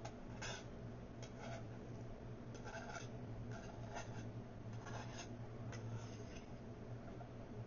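Close-up eating sounds: soft, irregular chewing and mouth noises, one or two a second, over a steady low electrical hum.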